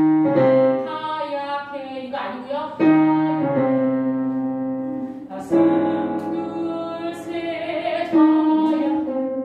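Piano playing slow chords, a new chord struck about every two and a half to three seconds and left to ring, with a voice singing along.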